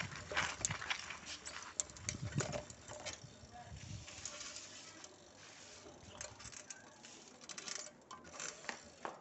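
Faint, irregular light clicks and knocks, a few at a time, with a quieter stretch in the middle.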